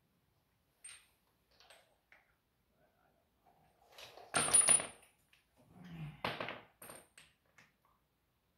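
Metal tools and parts clinking and clattering as they are handled. Light scattered ticks are followed by a loud clatter with a bright metallic ring about four and a half seconds in, then a second clatter a couple of seconds later.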